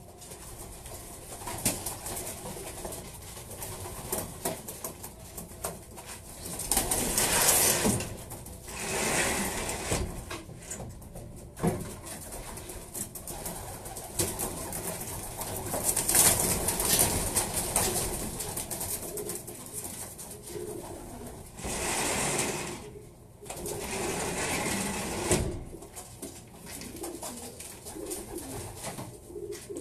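Racing pigeons cooing in the loft. Several louder bursts of flapping and rustling come in about a second at a time, as the birds are disturbed and one is caught by hand.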